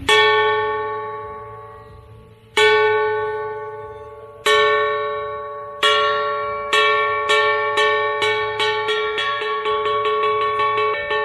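Large hanging gong of a Hainanese puppet-opera ensemble struck with a wooden mallet. The first few strokes are slow and widely spaced, each ringing on as it dies away, then the strokes quicken until they come about three a second.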